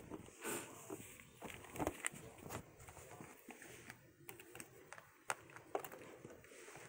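Kittens scrambling and pawing at a carpeted cat scratching post: scattered soft scuffs, scratches and taps, with a few sharper clicks, the loudest a little past five seconds in.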